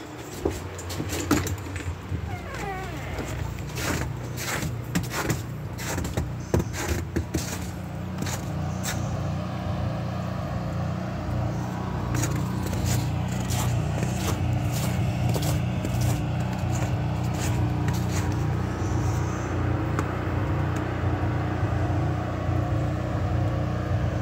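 A run of clicks and knocks as a door is opened and the phone is handled, then a steady low rumble of wind on the phone's microphone with a few scattered footsteps.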